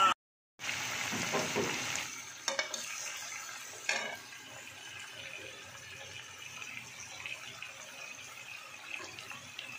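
Mutton frying dry in a metal pan with a steady sizzle, louder in the first few seconds. A slotted metal spatula scrapes against the pan a couple of times as it is stirred.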